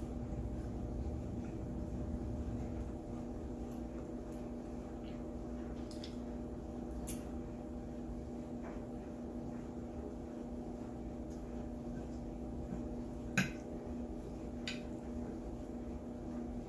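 Eating sounds: chewing, with scattered light clicks of cutlery on a plate and one sharper click about 13 seconds in, over a steady background hum.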